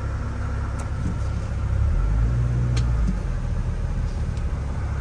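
2003 Mini Cooper's 1.6-litre four-cylinder engine idling, heard from inside the cabin as a steady low hum that dips lower for about a second around two seconds in, with a few faint clicks. Nearly no vibration at idle.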